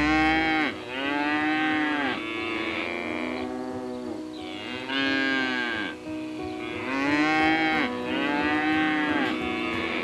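A series of drawn-out animal calls, each about a second long and arching up then down in pitch, some overlapping one another, as from several animals calling.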